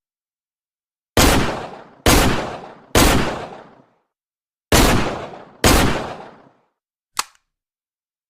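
Taurus Model 605 revolver firing five shots, each ringing away over most of a second: three about a second apart, a short pause, then two more. About two seconds later comes a single short click.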